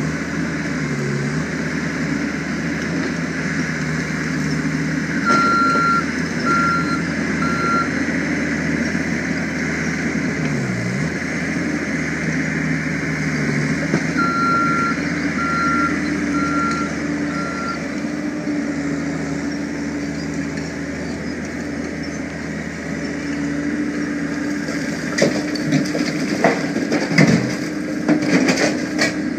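Skid steer loader's engine running steadily, its pitch sagging briefly twice, with its backup alarm beeping in two short runs, three beeps and then four, as it reverses. Near the end, rock and broken concrete clatter and knock as the bucket dumps them into the steel bed of a dump truck.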